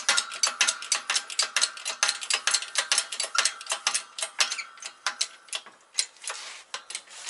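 Hydraulic shop press pump handle being worked quickly, giving a rapid, even train of metallic clicks, about four or five a second, that thins out after about four and a half seconds, as the ram bears down on a stubborn VW Mk2 control arm bushing.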